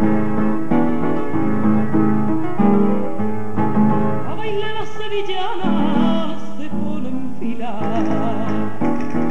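Sevillanas music: instruments playing sustained chords, with a singing voice coming in about four seconds in with long wavering, ornamented lines, and again near the end.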